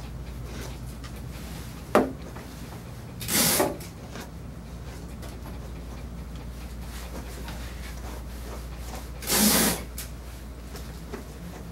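Slicker brush raking through a dog's long coat: two short, scratchy strokes, about three and a half and nine and a half seconds in, with a sharp click about two seconds in. A steady low hum runs underneath.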